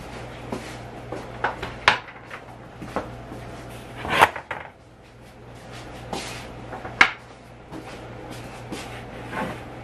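Aluminium chiffon cake pans knocking and scraping on the oven's metal deck as they are slid out, a handful of sharp clanks with the loudest about four and seven seconds in, over a steady low hum.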